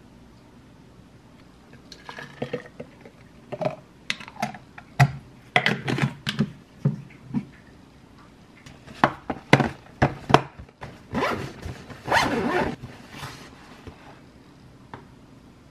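Handling sounds from packing drinks on a kitchen counter: clicks and knocks of plastic bottles and their screw caps set down and closed, with a zipper pulled on an insulated lunch bag near the end.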